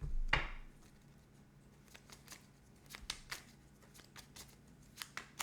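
Tarot cards being handled: a short swish of cards sliding just after the start, then a few light clicks and taps as cards are picked up and laid down.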